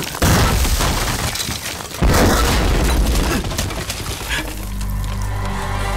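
Two explosion blasts with shattering debris, one just after the start and a second about two seconds in, each dying away. Steady low music notes come in about four and a half seconds in.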